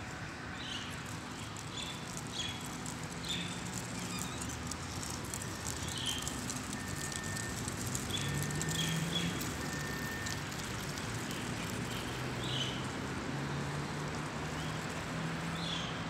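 Outdoor ambience: short bird chirps, scattered every second or so, over a steady background hiss and low rumble.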